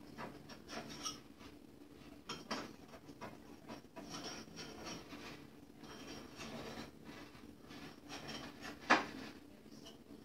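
A table knife scraping around the inside of a glass bowl in short repeated strokes, loosening a chilled cheesecake from the sides. A sharp clink comes about nine seconds in.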